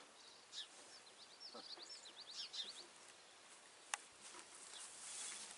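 Faint bird chirping: a quick string of short, high chirps in the first half, then a single sharp click about four seconds in.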